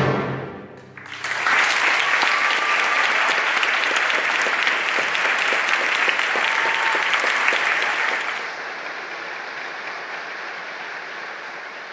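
A symphony orchestra's final chord stops and rings briefly in the hall's reverberation, then an audience breaks into applause about a second in. The applause is loud and dense, and grows quieter after about eight seconds.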